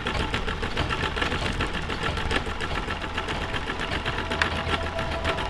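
Sewing machine running steadily, its needle stitching in a fast, even rhythm over a low motor hum.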